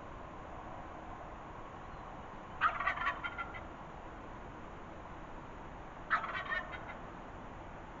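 Wild turkey gobbler gobbling twice, each gobble a quick rattling run of notes lasting about a second, the second coming about three and a half seconds after the first.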